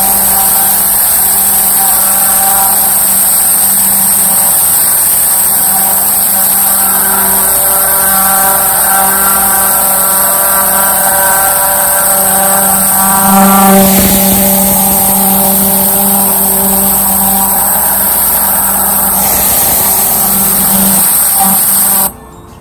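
A 10 GPM, 3,500 PSI cold-water pressure washer running steadily, its high-pressure spray hissing against concrete; it cuts off abruptly near the end.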